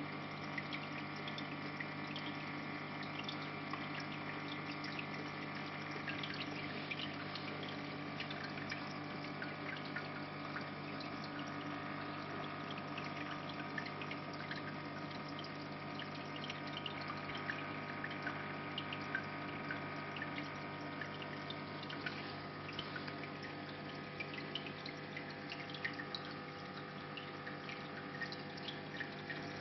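Reef aquarium's water circulation running: a constant pump hum under steady trickling water with many small drips and splashes.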